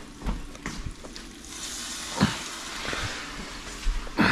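Ground-beef picadillo sizzling in a hot pan as a splash of red wine goes in to deglaze it; the sizzle swells about a second and a half in and dies down, with a few sharp knocks of handling, the loudest near the end.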